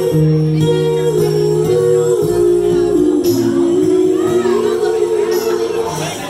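Live band playing: two women's voices singing long held notes in harmony over electric guitar and drums.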